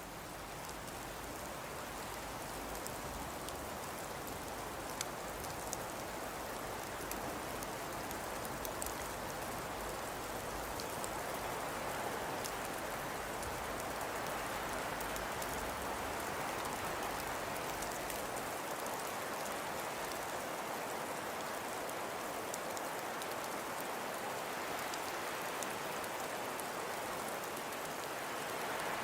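Steady rain falling, an even hiss with many separate drop ticks on top. A low rumble underneath drops away about two-thirds of the way through.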